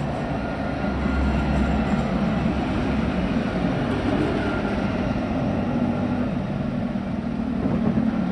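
Light-rail tram passing close by at street level: a steady low rumble of wheels on rail, with a faint steady whine above it. It grows louder about a second in and then holds.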